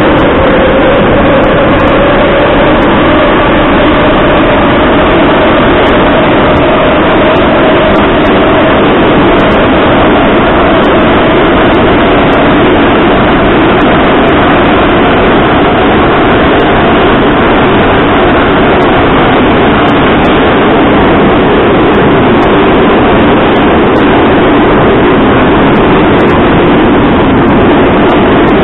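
Moscow Metro train running between stations, heard from inside the carriage: loud, steady running and rail noise, with a whine that slowly falls in pitch.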